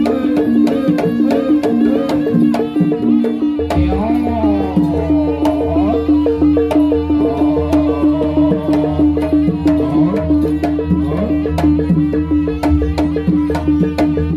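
Jaranan gamelan accompaniment playing: fast, even strikes of drums and struck metal over a held steady note. From about four seconds in, a wavering melody line weaves over it.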